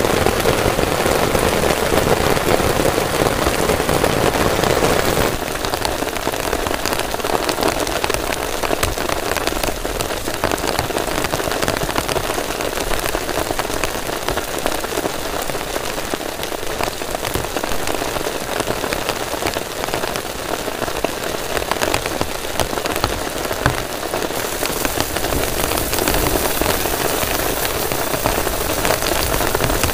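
Heavy rain falling steadily on a tent and its tarp, an even hiss of drops. The sound shifts abruptly about five seconds in and again near the end.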